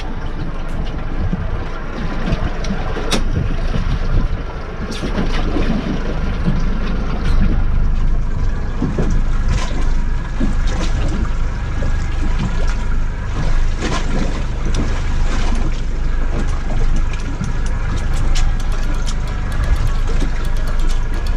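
Small motorboat's engine running underway, a steady low rumble with water noise and scattered knocks against the hull.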